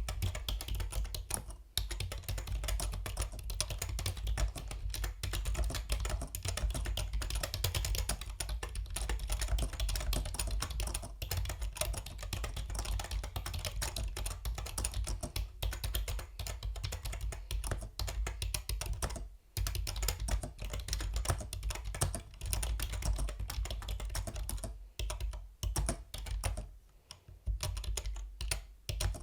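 Fast, continuous typing on a Yunzii B307 mechanical keyboard, key clicks in a dense run with short pauses about two-thirds of the way through and near the end.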